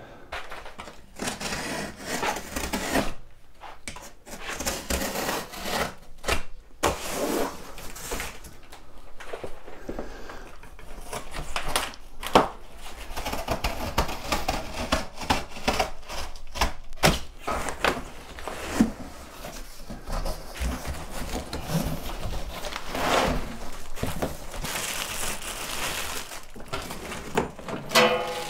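Heavy cardboard shipping carton being handled and opened by hand: irregular scraping, rustling and rubbing with many short knocks and thuds.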